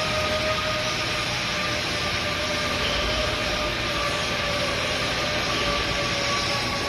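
Metal lathe machinery running steadily, with an even whine over a constant mechanical hum.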